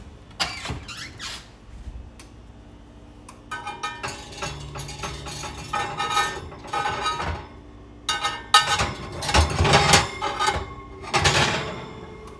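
Cast-iron sizzling plates scraping, squeaking and clinking against the wire oven rack as they are pulled out with a plate gripper. There are several rounds of metal-on-metal squeaks and scrapes, loudest in the last few seconds.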